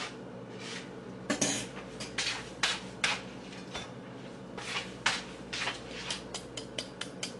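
Kitchen knife blade chopping into a cucumber held in the hand, hacking it to shred it for salad: a series of short, sharp chops, spaced out at first and then quicker, about four a second, in the second half.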